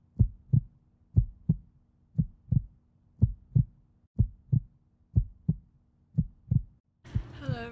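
Heartbeat sound effect: paired lub-dub thumps about once a second, seven beats in a row, stopping near the end.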